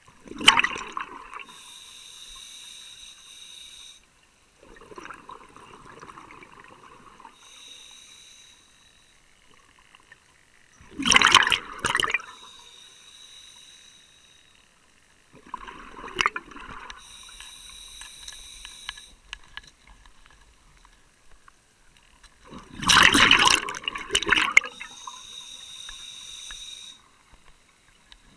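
Scuba diver breathing through a regulator, heard underwater: four loud rushes of exhaled bubbles, each followed by the regulator's quieter, whistling hiss of an inhaled breath.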